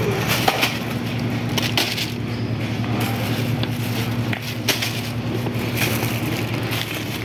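Wire supermarket shopping cart rattling as it rolls over a tiled floor, with snack packets crackling and clattering as they are grabbed off the shelves.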